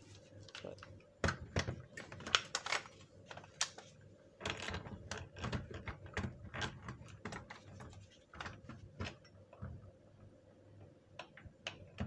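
Hard plastic parts of an opened molded-case circuit breaker clicking and clattering as they are handled and the trip unit is fitted back into the case. The clicks are light and irregular, thickest in the first two-thirds and sparser near the end.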